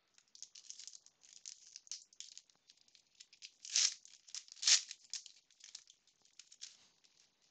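Foil wrapper of a Panini Prizm basketball card pack being crinkled and torn open by hand, a rapid run of crackling with two louder rips about four and nearly five seconds in.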